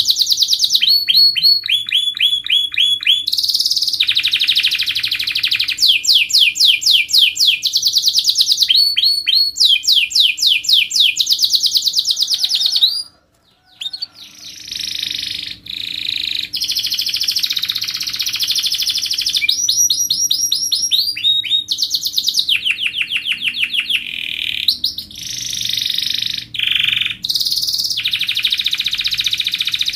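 Domestic canary singing a long, loud song of rapid trills, one tight rolling phrase after another with only a short break about thirteen seconds in.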